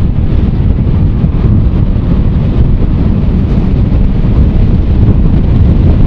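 Heavy wind rushing over the microphone of a TVS Apache RR 310 motorcycle riding at road speed, with the bike's single-cylinder engine running beneath it as the rider opens the throttle.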